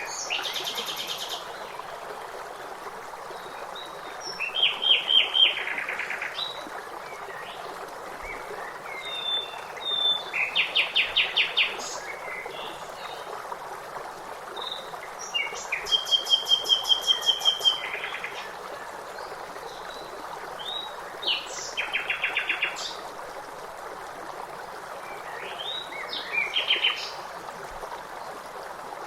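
Songbirds singing over a steady flowing stream: short trills of rapidly repeated notes come every five or six seconds, with scattered chirps between, over the even rush of water.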